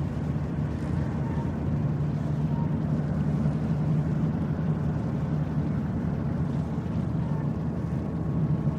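Ship's engine running with a steady low rumble, without change, as the vessel comes into port.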